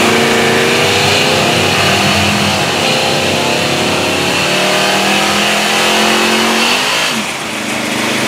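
Big-block 440 Magnum V8 running just after start-up, its pitch drifting up and down at a fast idle, then dropping back about seven seconds in.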